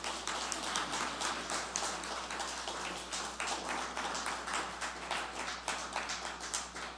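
Small audience applauding, with separate hand claps heard in a dense, irregular patter.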